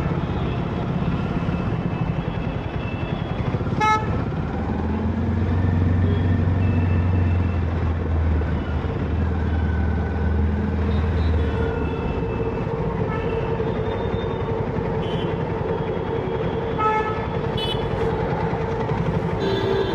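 Busy city road traffic: vehicle engines running, with horns honking briefly on and off. A heavy engine drones low for several seconds in the middle.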